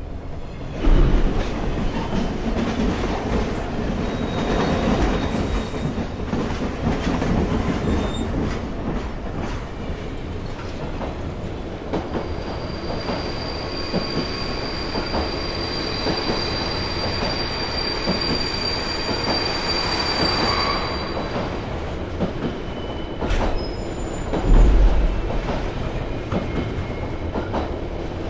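Electric multiple unit train (SNCF Z 24500 TER 2N NG) running on the rails, heard from the driver's cab: a steady rolling rumble, with a thin high wheel squeal held for several seconds in the middle and two loud low thumps, about a second in and near the end.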